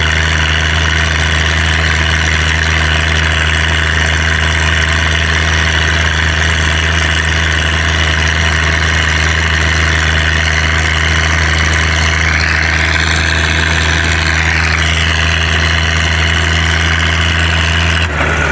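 Farm tractor engine running at a steady speed while the tractor drives down the road, its note unchanging throughout. The higher hiss swells and falls back about two-thirds of the way through, and the sound cuts off abruptly near the end.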